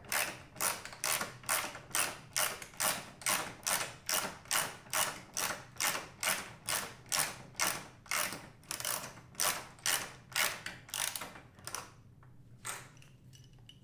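Hand socket ratchet clicking in quick back-and-forth strokes, about two a second, as a nut is run down a carriage bolt through an aluminium mounting bracket. The strokes stop about twelve seconds in.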